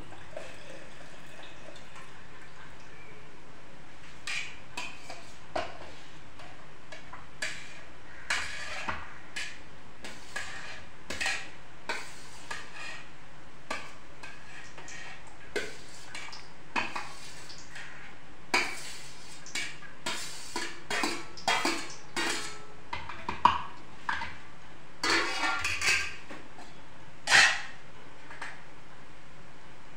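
Kitchen utensils clinking and knocking against a pot and a chopper bowl as cooled boiled vegetables are spooned into a vegetable chopper: irregular clinks and scrapes, busier in the second half, with the sharpest knocks about three-quarters of the way through and near the end.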